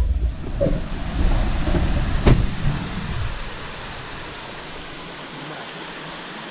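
Low rumbling noise on the microphone with a sharp knock about two seconds in, settling after about three seconds into a steady rushing hiss of flowing river water.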